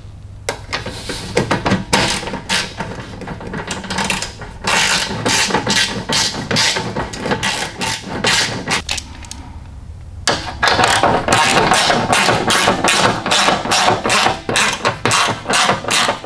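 Hand ratchet wrench clicking in rapid bursts while the air cleaner's mounting bolts are run in, with a short pause just before the tenth second.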